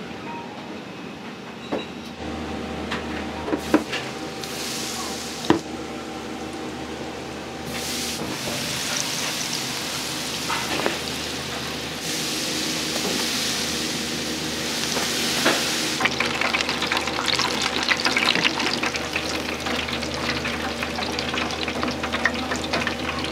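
Food sizzling as it fries, the hiss growing louder for a few seconds past the middle, with a few sharp clacks and a steady hum underneath.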